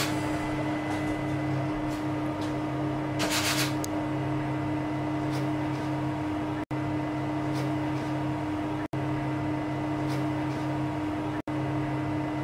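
Steady electrical machine hum with a fixed low tone, broken by a short burst of hiss about three and a half seconds in. The sound cuts out completely for an instant three times in the second half.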